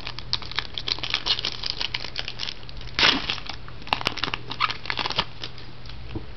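Crinkling of a trading card pack wrapper being opened and handled: a run of short crackles with a louder burst about three seconds in.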